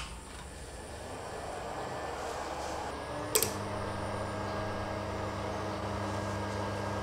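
Steady hiss and low mains hum from a homemade stereo power amplifier just after power-on, slowly growing louder over the first couple of seconds. About three and a half seconds in there is a short click as the speaker-protection relays engage, and after it the hum settles into a steadier, clearer drone.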